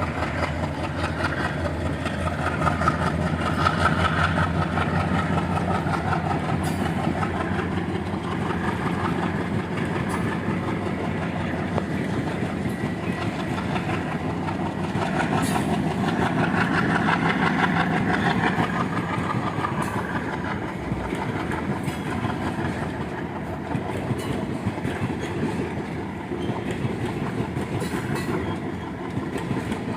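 Express train hauled by twin ALCO WDM3D diesel locomotives moving past, its wheels clattering over the rail joints in a continuous rumble that swells louder twice.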